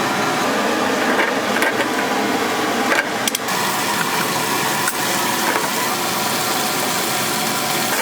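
Food frying on a hot griddle: a steady sizzle, with a few sharp clicks of metal utensils about three and five seconds in.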